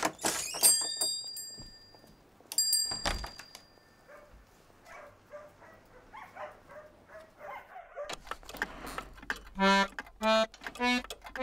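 A small bell rings twice near the start, like a shop-door bell. In the last few seconds a piano accordion plays a string of short, separate notes, about two a second.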